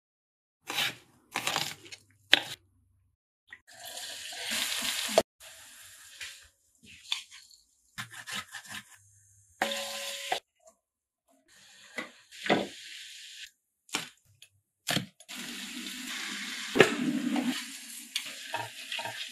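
Home-cooking sounds in short cuts: a few sharp knife strikes on a wooden chopping board, then minced garlic scraped into a pan of hot oil and sizzling, the sizzle loudest in the last few seconds.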